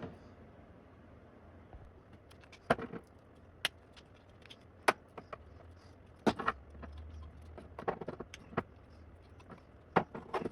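Small 3D-printed plastic typewriter foot mounts and cushion inserts being handled. About a dozen sharp clicks and taps come at irregular intervals as the parts are pressed together and set down.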